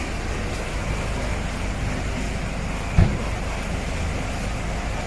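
Steady low rumbling background noise with one dull thump about three seconds in.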